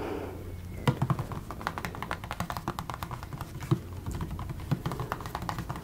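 Fingernails tapping quickly and irregularly on a Vita Coco paperboard coconut water carton, the clicks starting about a second in.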